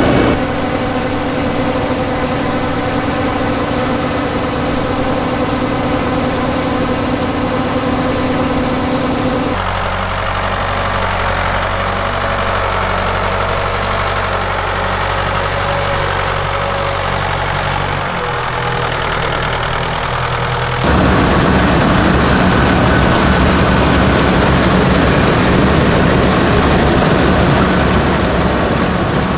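Massey Ferguson 760 combine's Perkins V8 diesel engine running steadily. The tone changes abruptly about a third of the way in and twice more later on, as between separate recordings.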